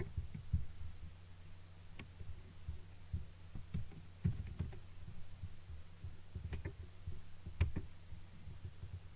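Irregular clicks and taps from a computer mouse and keyboard, with a few low thumps, over a steady low electrical hum.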